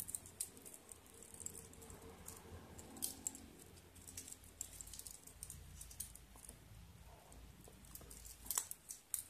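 Faint, scattered small clicks and taps of a wristwatch being handled, with a few sharper clicks about three seconds in and near the end.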